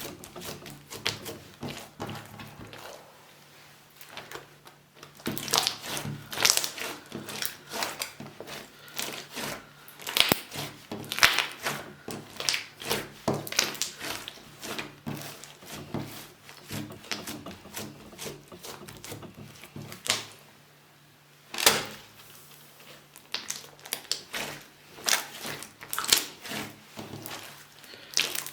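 Slime being handled and squeezed, making irregular sticky clicks and crackling pops, with two quieter spells between the bursts.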